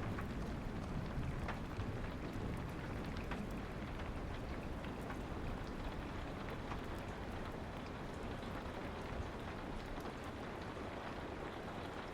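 Steady rain with scattered sharp crackles from a wood fire. A low rumble eases off over the first couple of seconds.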